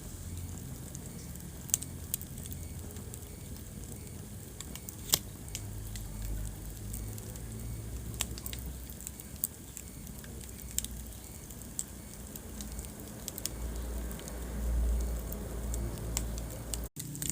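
Wood fire burning in a fireplace: sharp crackles and pops at irregular intervals over a low rumble of the flames, which swells briefly near the end. The sound cuts out for an instant just before the end.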